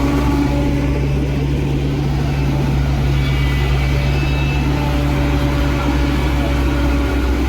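Paddy combine harvester's engine running steadily, a low, even drone.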